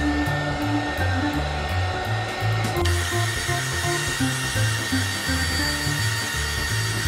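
Hot-air heat gun blowing steadily while it shrinks heat-shrink tubing onto a lamp cable, under background music. About three seconds in the hiss grows louder and a high whine joins.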